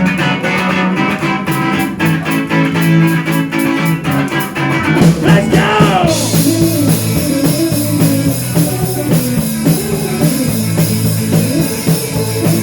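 Rock song intro: guitar and drums playing a rhythmic figure, with the full band coming in denser and louder about halfway through.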